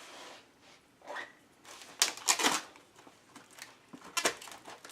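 Kitchen knife cutting vegetables on a cutting board: a few sharp knocks, bunched around the middle and again near the end.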